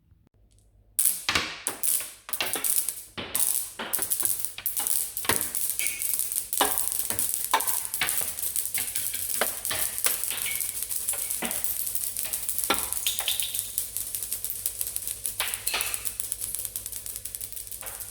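Dense crackling and sizzling: many sharp clicks and snaps over a steady hiss, starting suddenly about a second in and running on, a little softer near the end.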